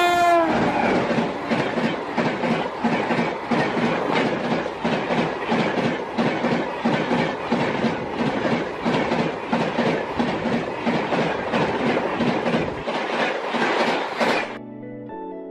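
Passing train: a horn ends with a drop in pitch at the very start, then the coach wheels clatter rapidly and rhythmically over the rail joints, clickety-clack, until the sound cuts off near the end as music comes in.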